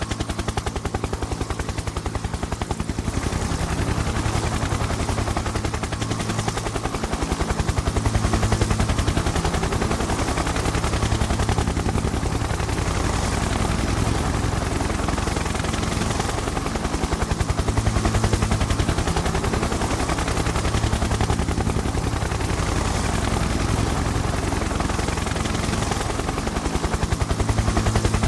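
Helicopter rotor chopping steadily in a rapid, even beat over a low engine hum, swelling a little now and then.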